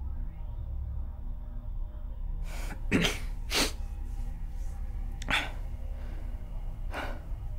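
A man's short, sharp breaths, five of them a second or two apart, the loudest about three seconds in, over a low steady drone.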